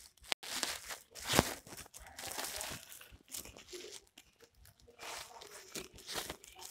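Woven plastic rice sack rustling and crinkling as its top edge is folded and stitched shut with a sack needle and twine, in irregular crackly scrapes, the sharpest about a second and a half in.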